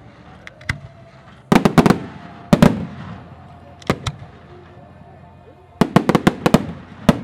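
Aerial fireworks shells bursting overhead: sharp bangs, mostly in quick clusters of several at a time, each followed by a fading echo. There is a single bang under a second in, clusters around 1.5–2 and 2.5 seconds, one near 4 seconds, a rapid cluster around 6 seconds and a last bang near the end.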